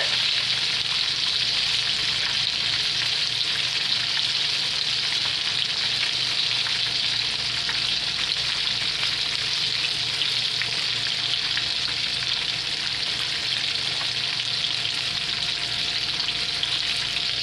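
Breaded chicken strips frying in a skillet of hot oil: a steady, dense crackling sizzle.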